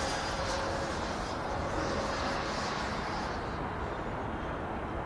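Electric ducted fan of a Freewing F-86 Sabre RC jet whining in flight overhead, the high whine fading away over the first few seconds and leaving a steady low rush.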